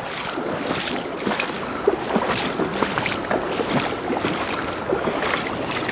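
Water splashing and churning irregularly, with many short slaps: a large hooked trout thrashing at the surface during the fight.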